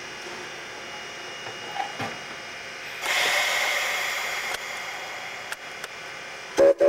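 Baldwin 2-8-0 steam locomotive hissing steam. About three seconds in, a louder hiss of steam from its open cylinder cocks starts and slowly fades. Near the end its steam whistle gives loud, short toots.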